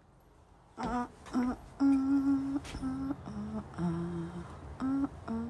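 A woman humming a tune in short, steady notes, starting about a second in.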